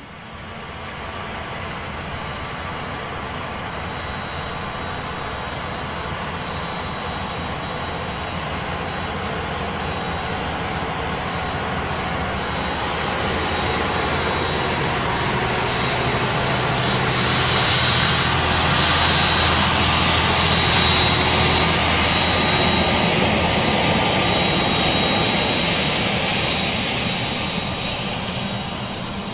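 Case IH Steiger Quadtrac 620's FPT 12.9-litre six-cylinder diesel running under heavy load while pulling a Bednar Combo CS 5000 cultivator-drill, with a steady high whistle over the engine note. It grows louder as the tractor passes close, peaking a little past halfway, then fades.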